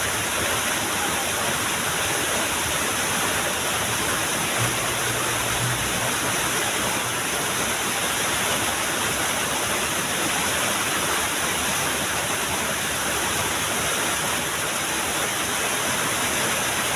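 Water rushing steadily over a small waterfall, an even, unbroken noise.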